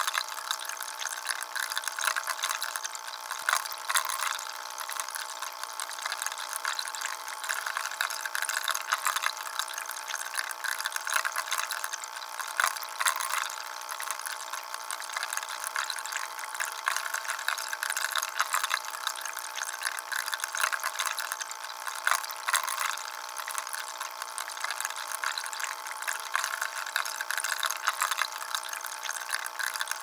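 Sunnydaze Soothing Matrix tabletop fountain: a thin stream of water falls from its spout onto the mesh grate over its basin, making a steady trickling splash with small crackles.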